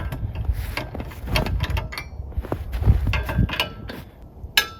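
Irregular metal clinks, clicks and knocks from handling tools and parts as the Alaskan chainsaw mill and saw bar are taken apart to turn the chain around, because it was mounted backwards. A sharp clank comes near the end.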